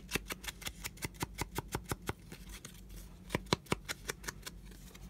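Foam ink blending tool dabbed rapidly against the torn edge of a paper card: a quick run of soft taps, several a second, thinning out about two seconds in, then a few louder taps before the quick dabbing resumes.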